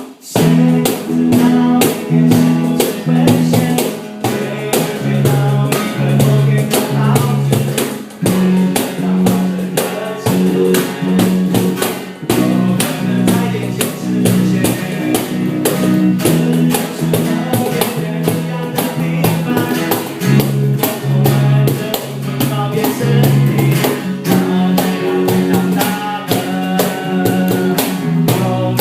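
A band playing live in rehearsal: drum kit, bass and guitar in an instrumental passage without vocals, the bass holding steady notes under a dense drum beat.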